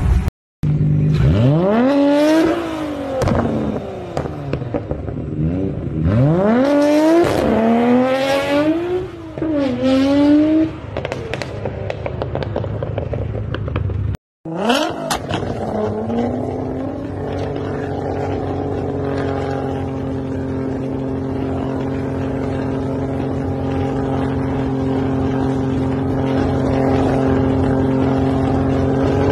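Nissan GT-R's twin-turbo V6 engine revved hard several times, its pitch climbing sharply and falling back. After a brief cut, it settles into a steady, unchanging drone for the rest.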